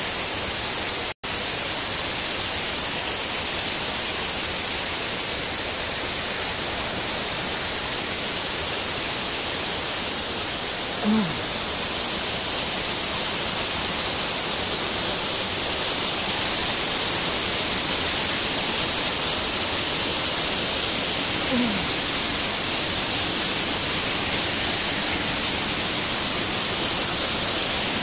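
Steady rushing hiss of a small waterfall cascading down rocks. The sound drops out for an instant about a second in.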